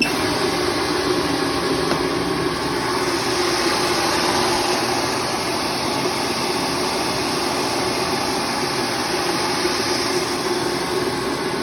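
BRUSA LPC 160 orbital sanding machine switched on and running, its sanding head made of two halves that turn in opposite directions. It gives a loud, steady mechanical noise with a low hum that starts abruptly.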